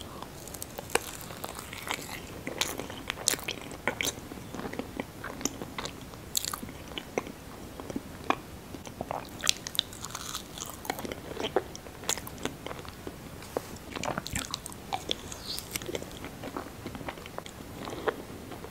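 A person chewing mousse cake right up against the microphone, with many sharp, irregular clicks through the chewing.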